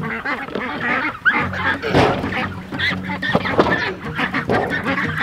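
Ducks quacking over and over in a pen, with a few sharp knocks as the metal tub and the pen's lid are handled.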